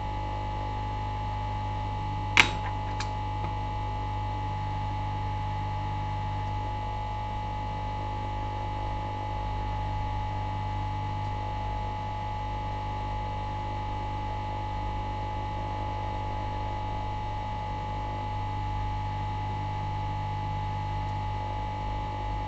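ToolCraft hot air rework station blowing steadily, a constant hum with a fan whine, heating a surface-mount chip to desolder it. A single sharp click sounds about two seconds in.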